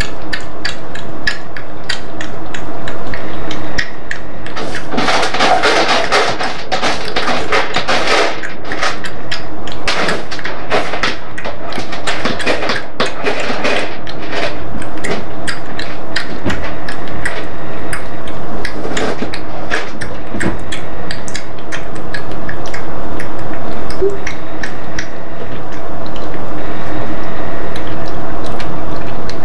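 Tabby kitten suckling hard on a nursing-bottle teat: a dense, irregular run of wet clicks and smacks, heaviest about five to eight seconds in.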